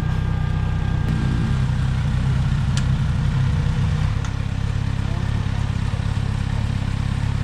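Kawasaki Z900RS motorcycles' inline-four engines idling with a steady, low, even note.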